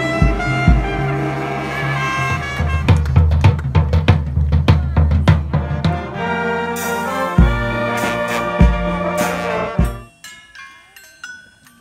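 Brass band with drums playing a tune, with low brass bass notes and drum hits; the music breaks off about ten seconds in, leaving only faint sounds.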